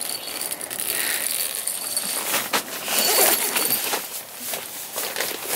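Close rustling and crinkling of nylon tent fabric with scattered small clicks, as a dog shifts about on the tent floor and is petted.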